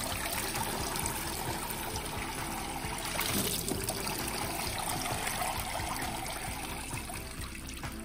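Water from a poured bucket showering down through the holes of a plastic toy water table's palm-tree canopy in many thin streams, splashing into the water-filled basin below; it thins to a trickle from the spout near the end.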